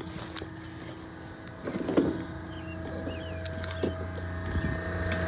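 Water-cooled Copeland refrigeration compressor running with a steady hum, growing louder near the end, with a few knocks about two and four seconds in.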